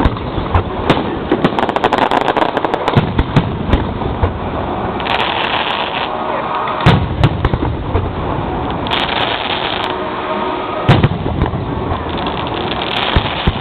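Fireworks display heard close to the launch site: a rapid string of bangs and crackles, with the heaviest booms about seven and eleven seconds in.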